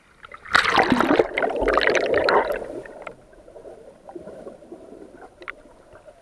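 Seawater splashing loudly around a pole-mounted camera as it is plunged under the surface, then quieter muffled underwater bubbling and gurgling for the rest of the time.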